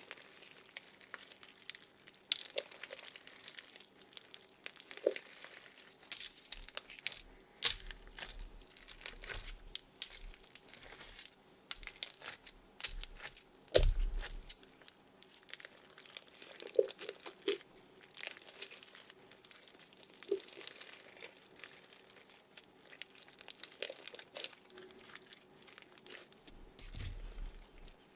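Bead-filled slime being squished and mixed by hand: a dense, irregular run of crackles and clicks from the beads, with one louder thump about halfway through.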